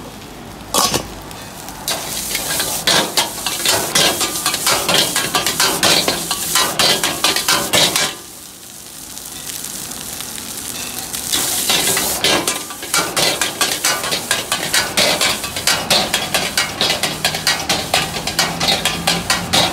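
Stir-frying rice in a wok: a metal ladle scraping and clanking against the pan, about four or five strikes a second, over steady sizzling. The strikes pause for a few seconds near the middle, leaving only the sizzle.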